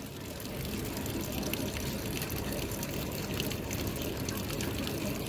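Steady low rushing noise, like running water, holding even throughout.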